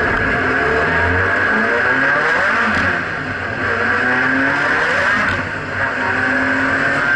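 Nissan 180SX's turbocharged SR20DET four-cylinder running hard under acceleration, heard from inside the cabin, its revs rising and falling. The engine note dips briefly twice, about three seconds in and again near six seconds.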